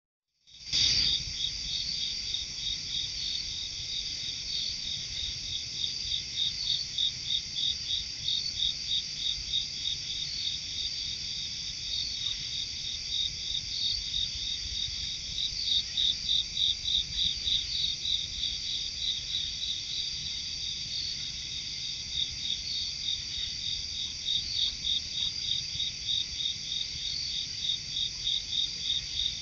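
Night insects singing in chorus: a steady high-pitched trill, with a louder pulsing call repeating several times a second that swells and fades, strongest around the middle.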